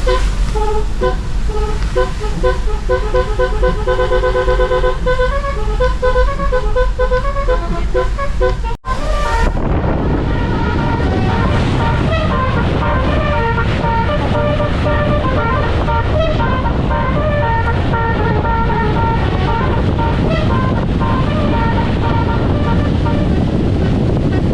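Truck's musical horn (basuri/telolet type) playing a tune of short, quickly stepping notes. About nine seconds in the sound cuts briefly, then a horn tune goes on over a heavy bed of vehicle noise.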